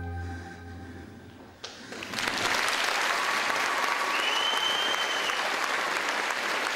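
The last held chord of the musical number fades out, and about two seconds in a theatre audience bursts into steady applause. A whistle rings out over the clapping a couple of seconds later.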